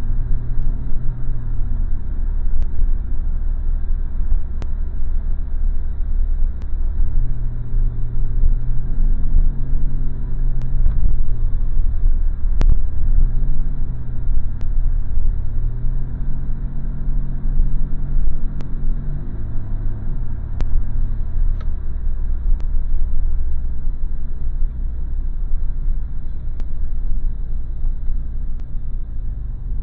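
Pontiac Trans Am's engine running as the car is driven, heard from inside the cabin: a low rumble whose note shifts up and down several times with the throttle, over road noise.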